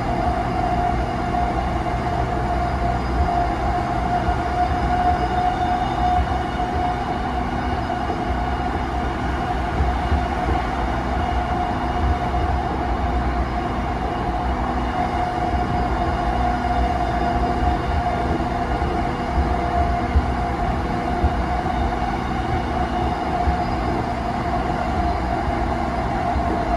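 Cabin running sound of a JR East E233-5000 series electric commuter train at steady speed: a continuous rumble of wheels on rail, with a whine held at one pitch throughout and a few faint knocks.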